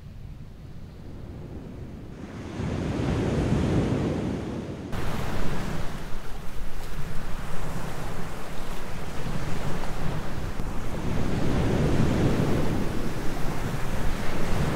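Ocean surf: breaking waves washing in as a steady rush that swells and eases every few seconds. It grows louder about two seconds in and jumps abruptly louder and hissier about five seconds in.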